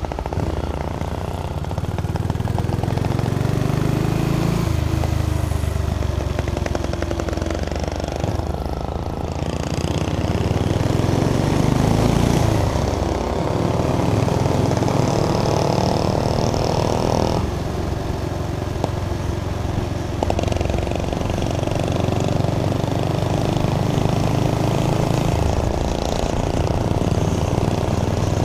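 Motorcycle engine running under way through town. The engine note rises and falls and shifts in steps several times as the rider accelerates, changes gear and slows.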